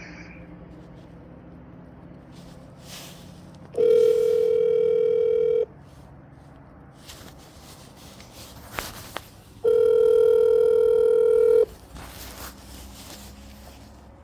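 Telephone ringback tone heard over a phone's speaker: two steady rings of about two seconds each, four seconds apart. It means an outgoing call is ringing and waiting for the other party to answer.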